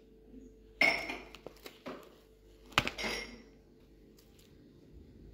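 A metal fork clinking and scraping against a ceramic dinner plate of spaghetti: two sharp clinks, about a second in and again about two seconds later, with a few lighter taps between.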